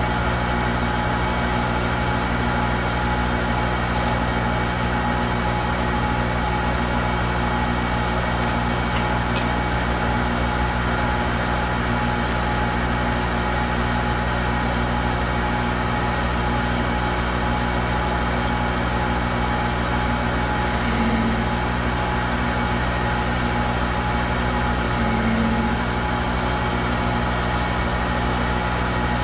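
Monarch 10EE toolroom lathe running steadily: a constant machine hum made of many fixed tones. It swells briefly twice in the latter part.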